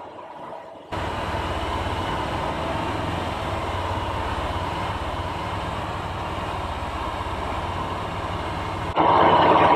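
Steady low engine drone with rolling and wind noise from a utility vehicle moving slowly. The sound changes abruptly about a second in and jumps louder near the end, like edit cuts.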